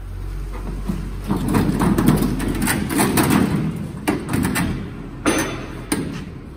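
Top cover of a Kia EV6 battery pack being pried up and lifted off by hand, scraping and rubbing against the pack's edge with many small clicks, then two sharp knocks near the end.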